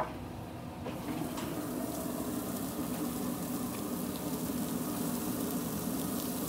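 Redfish fillets and asparagus sizzling on a hot grill grate: a steady sizzle that grows a little about a second in, as the spears are laid on. A single sharp clank comes right at the start.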